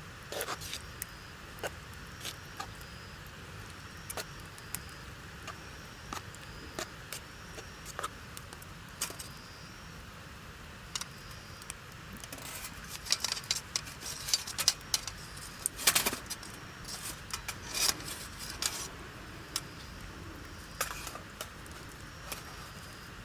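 Wood campfire crackling and popping: irregular sharp snaps over a low steady hiss, growing busier and louder in the middle.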